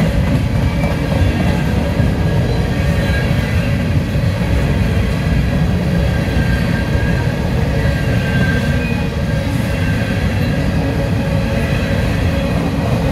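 A slow CSX freight train's covered hopper cars rolling past close by, making a steady low rumble of steel wheels on rail. Faint high-pitched wheel squeals come and go over it.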